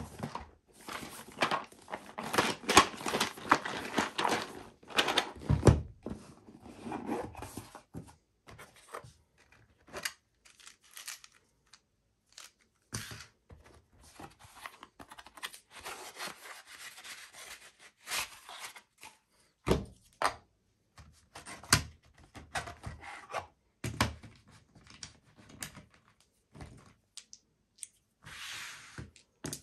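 A cardboard board-game box being opened and unpacked by hand: the lid is worked off with a long spell of cardboard rubbing on cardboard, then the custom insert's trays and components are lifted and set down with scattered rubbing, light clicks and a few thumps.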